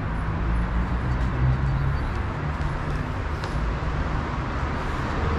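Steady street-traffic rumble with an even hiss and no distinct individual events.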